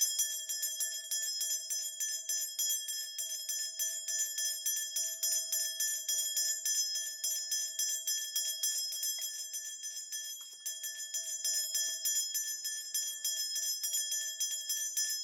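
A cluster of Korean shaman's ritual bells (mugu bangul) shaken rapidly and continuously in a steady jingle, briefly softer about ten seconds in. This is the bell-shaking a shaman uses to call the spirits during a divination.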